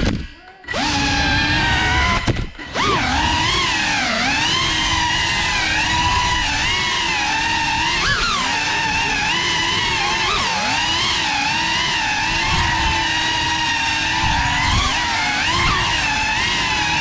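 Cinewhoop quadcopter's four brushless motors and ducted propellers whining, heard from the onboard camera, the pitch rising and falling with the throttle. The sound cuts out briefly twice in the first three seconds as the throttle is chopped.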